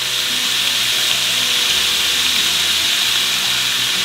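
Cubed pork frying in hot lard in a skillet, sizzling hard and steadily as water is poured into the pan.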